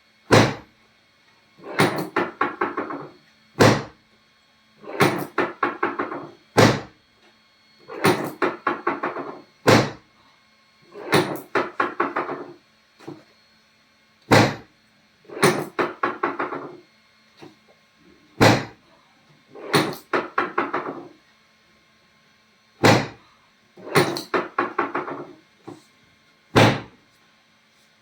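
Repeated mechanical tapping: seven runs of rapid taps, each about a second long, with single sharp clicks between the runs, the cycle coming round every three to four seconds.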